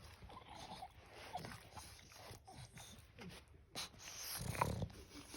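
English bulldog snoring in its sleep: soft noisy breaths, with a louder low snore near the end.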